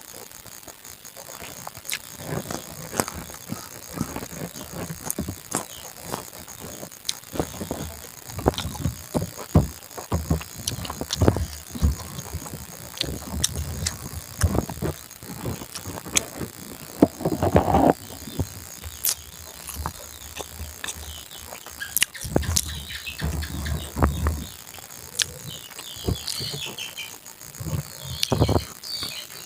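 Close-up eating sounds: chewing, lip smacks and small clicks of food and rice being eaten by hand, at an uneven pace. A brief louder, higher sound stands out about seventeen seconds in.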